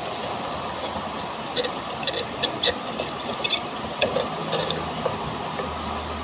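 A run of sharp light clicks about one and a half to five seconds in, over a steady hiss; a low hum sets in near the end.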